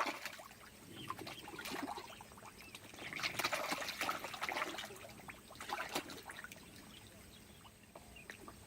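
Pond water splashing and trickling in irregular bursts, strongest about three to four and a half seconds in, from koi feeding at the surface.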